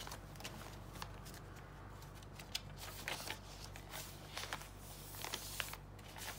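Paper pages of a handmade journal being handled and turned: soft rustles and small crisp clicks, with a brief sliding swish near the end, over a faint steady low hum.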